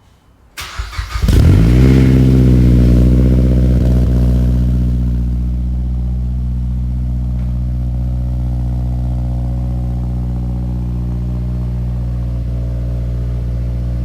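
MazdaSpeed 3's turbocharged 2.3-litre four-cylinder cold-starting on its stock downpipe: the starter cranks briefly, the engine catches just over a second in and runs at a loud high fast idle, then settles to a steady, slightly quieter idle a few seconds later.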